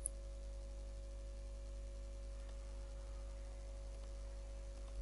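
Low, steady electrical hum with a faint steady tone above it: background noise of a microphone recording. There is a brief faint high tick right at the start.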